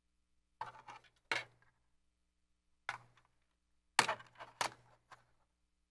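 About six short clicks and clinks, spaced irregularly, the loudest about four seconds in: small hardware being handled against a PC case as a Corsair Commander Mini fan controller is fitted with double-sided tape and pressed into place.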